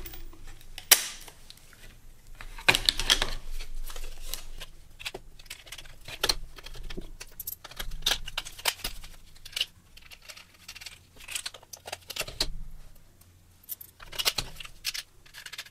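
Hands assembling a 3D-printed plastic blast gate: irregular clicks, taps and light rattles of steel bolts and washers against the plastic body pieces as the bolts are pushed through the holes, with one sharp click about a second in.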